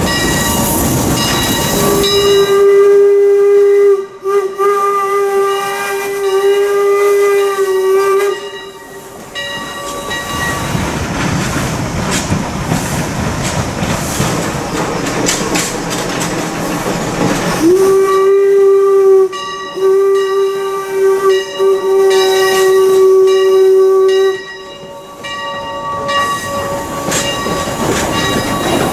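Steam whistle of the 4-4-0 steam locomotive PRR #331 (a replica of the Leviathan #63), blown in two long blasts of about six seconds each, each broken briefly once or twice. Around and between the blasts is the steady running noise of the train.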